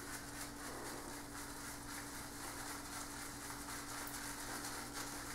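Faint, irregular rubbing of a damp boar-bristle shaving brush against Proraso shave soap as the brush is loaded, over a steady low hum.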